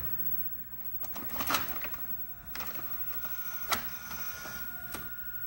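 VCR cassette-loading mechanism drawing a VHS tape in and lowering it into place: a run of mechanical clicks and clunks over a motor whir, with a steady thin whine setting in about two seconds in and the sharpest click about two-thirds of the way through.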